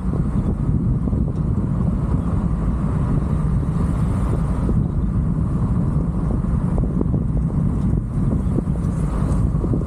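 Wind buffeting a microphone outside a moving car, over the car's steady road and engine noise: a continuous low rumble.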